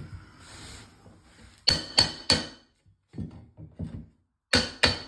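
Claw hammer striking a metal laminate pull bar, knocking the last strip of laminate flooring tight into its joint against the wall. There are three quick ringing strikes about a second and a half in, a few softer knocks, then two more strikes near the end.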